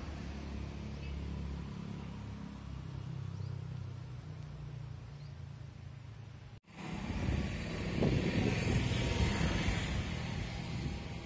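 Outdoor ambient noise: a steady low rumble, broken by a short dropout about two-thirds of the way through, then louder, gusty noise.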